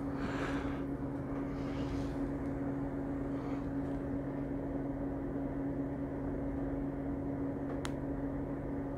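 Steady low hum with a constant tone, over faint room noise. A few soft handling rustles come in the first seconds, and there is a single sharp click near the end.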